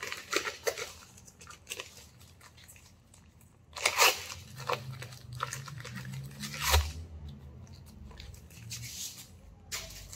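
Plastic wrapping being torn and pulled off a comic book: irregular crinkling and ripping, loudest about four seconds in and again near seven seconds.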